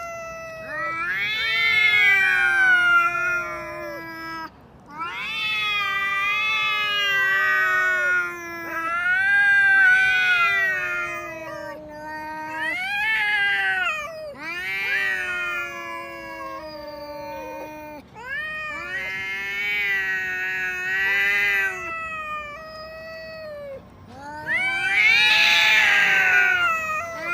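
Two cats yowling at each other in a quarrel: long, wavering caterwauls one after another with short breaks, and a louder, harsher screech about 25 seconds in.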